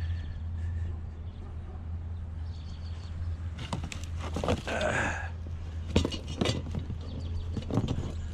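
Scrap pieces being handled and dropped into a container: a run of knocks and clatters in the second half, with a brief scrape near the middle, over a steady low hum.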